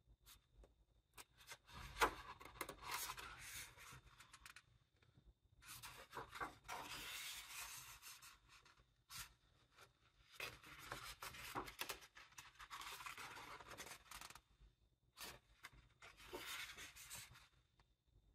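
Pages of a large illustrated book being turned by hand: about four slow page turns, each a couple of seconds of paper sliding and rustling, with small crisp ticks of the paper.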